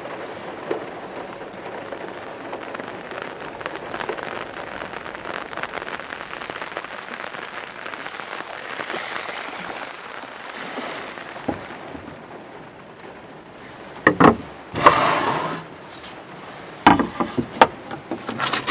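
Heavy rain pattering steadily on a VW camper van, with scattered drop ticks. In the last few seconds the rain is topped by several loud knocks and a short clatter of things being handled on a wooden table.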